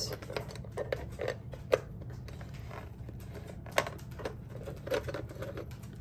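Small metal embellishments, an ornate filigree piece and a metal ring, clicking and tapping lightly as hands shift them around on a wooden panel board. Scattered light knocks and scrapes, a few louder taps standing out.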